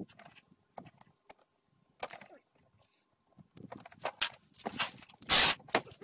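Scattered clicks and knocks of hands working on a Predator 3500 generator's plastic covers as they are refitted, with one louder short knock about five seconds in.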